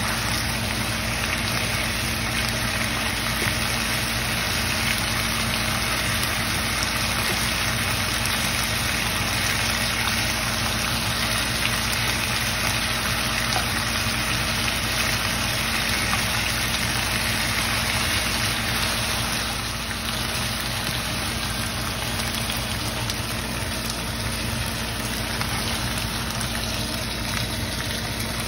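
Meat sizzling steadily in a hot nonstick frying pan, over a steady low hum.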